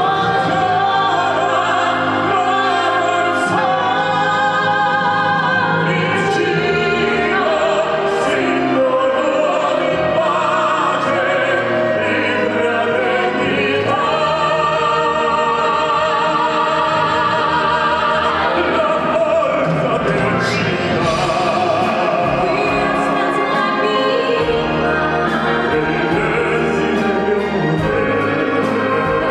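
Operatic-style singing in Italian with wide vibrato, carried over a continuous orchestral backing.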